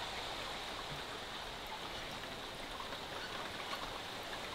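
Heavy rain falling steadily: a dense, even hiss sprinkled with small drop splashes.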